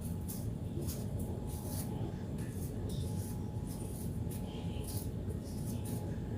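Faint light clicks and rustles of food and lunch-box containers being handled, over a steady low hum.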